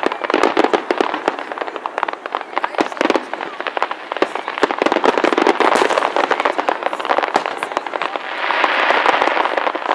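Fireworks display: aerial shells bursting in a fast, continuous barrage of bangs and crackles. About eight seconds in, a swell of dense crackling rises above the bangs.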